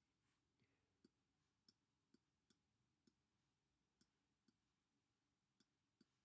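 Near silence broken by about a dozen faint, sharp clicks at irregular spacing, roughly two a second, from the pen-input device as numbers are handwritten on screen.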